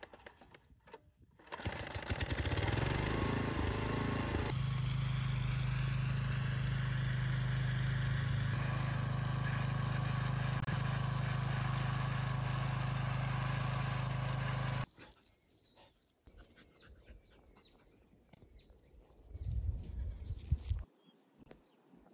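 Small single-cylinder engine of a walk-behind cultivator, pull-started and catching about two seconds in, then running steadily under load while its ridger throws up a soil ridge. It cuts off abruptly partway through, leaving a bird giving a run of short falling chirps.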